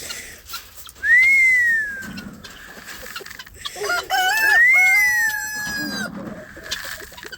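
A person whistles twice, each a single rising-then-falling note, about a second in and again just past the middle. Between them a rooster crows, with chickens clucking.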